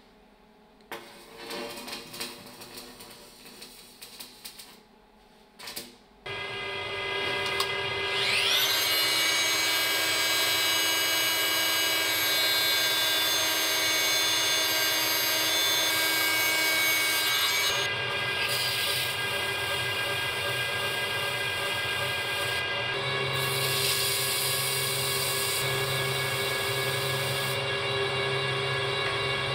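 A lathe spins a welded steel drill-press tube while a power sander with a triangular pad is held against it. It makes a steady machine whine with many tones, which sets in about six seconds in and climbs in pitch as it comes up to speed. Before that there is a few seconds of quieter, irregular welding crackle.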